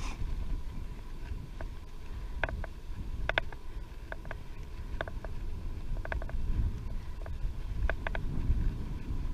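Wind rumbling on the microphone of a bicycle-mounted camera while riding, with scattered short high-pitched ticks over it.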